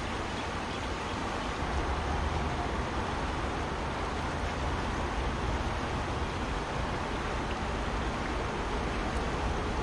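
Steady rush of a fast-flowing river, with a low rumble underneath.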